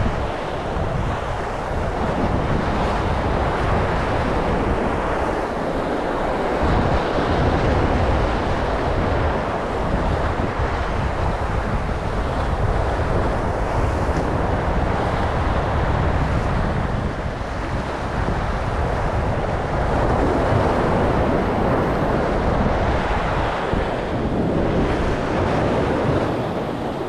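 Sea surf washing and breaking against concrete breakwater blocks, with steady wind buffeting the microphone.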